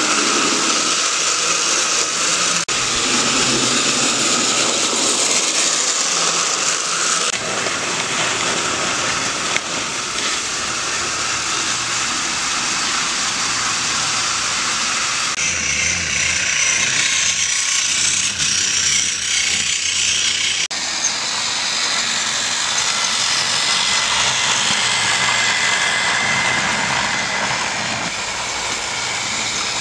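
Battery-powered TOMY Trackmaster toy trains running along plastic track, their motors and wheels making a steady noise that changes abruptly several times.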